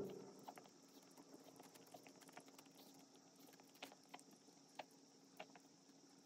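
Faint, irregular soft clicks and crinkles of a Pomeranian licking and stepping on a plastic zip bag over paint.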